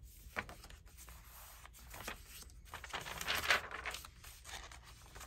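Paper pages of a handmade journal being handled and turned, rustling and crinkling in short bursts, the loudest swish about three seconds in.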